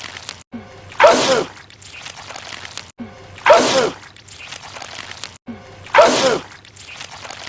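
A man's loud sneeze, the same sneeze repeated three times about two and a half seconds apart. Each is a sudden burst that falls in pitch, then trails off more quietly.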